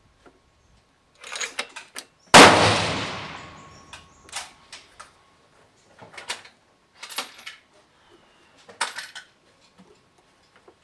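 A single .308 Winchester rifle shot from a bolt-action Tikka T3 Varmint, a loud crack whose report dies away over about a second and a half. It is surrounded by short, sharp metallic clicks and clacks, a few just before the shot and several scattered afterwards.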